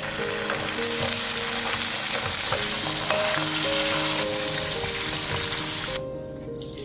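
Food sizzling as it fries in a pan, a steady hiss that cuts off suddenly about six seconds in, over light background music.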